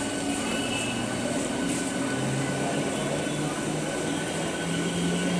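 Electric multiple-unit local train's traction motors whining, the pitch climbing steadily as the train accelerates.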